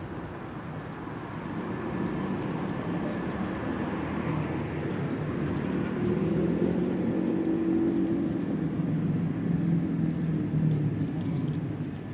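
Street traffic: a motor vehicle's engine hum over road noise, growing louder over several seconds as it passes close, then dropping away near the end.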